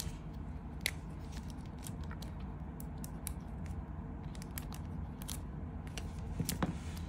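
Scattered light clicks and taps from a Zippo lighter being handled, over a steady low hum.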